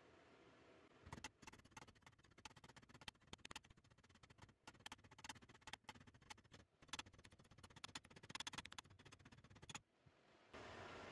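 Hammer driving a laminated walnut double dowel down through a die drilled in a steel plate. A quick, irregular run of sharp strikes starts about a second in and stops near the end, as the die shaves the dowel to its final shape.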